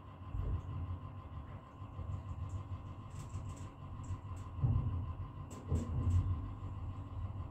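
Passenger lift in operation: a steady low rumble with a faint steady hum, and a run of light clicks between about three and six and a half seconds in.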